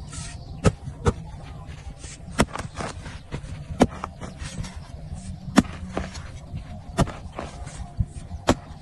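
Long-handled pick chopping into dry, hard earth while digging a pit: sharp, irregular strikes about every second or so, with loose soil crumbling.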